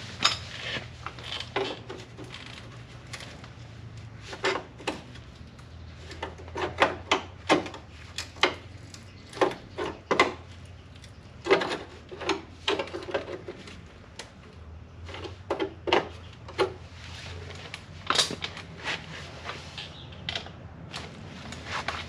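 Irregular metallic clanks and knocks of hand tools on sheet steel, coming in clusters, as old spot welds to the floor panel are worked loose; a low steady hum runs underneath.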